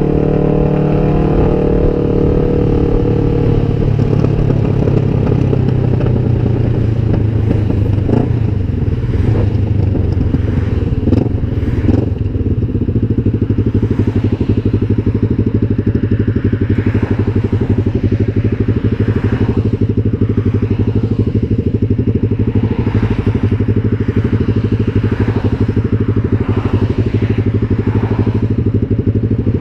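Kawasaki Vulcan 500's parallel-twin engine running loud through open drag pipes. Its note falls over the first few seconds, then settles into a steady low beat as the bike slows and stops in traffic.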